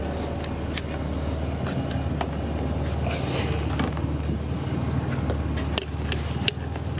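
DAF 575 marine diesel engine idling steadily with a low drone, shortly after a cold start, heard with its engine hatch closed. A few sharp knocks and clicks from movement on board sit on top of it.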